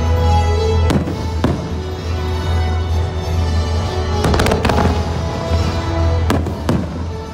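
Fireworks bursting over the show's music soundtrack, which is playing sustained notes. There are sharp bangs about a second in and again half a second later, a quick cluster of them a little past the middle, and two more near the end.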